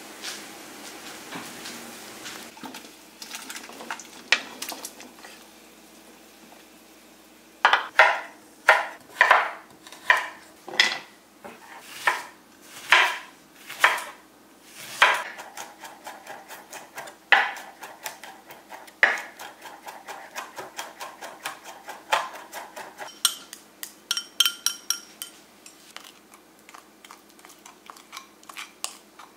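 Kitchen knife chopping onion on a wooden cutting board: firm, evenly spaced chops about one to two a second, then a run of quicker, lighter cuts. A few ringing clinks of dishes come in near the end.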